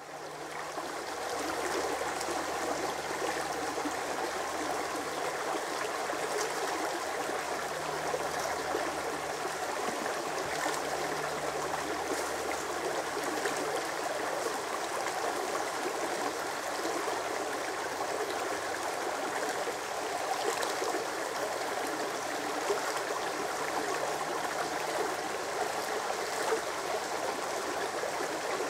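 Shallow brook rushing and rippling steadily over rocks, fading in over the first second or so.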